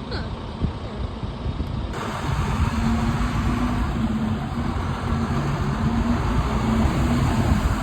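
A bus engine running with low road rumble. About two seconds in, the sound changes abruptly and gets louder, with a steady low engine drone that breaks off briefly now and then.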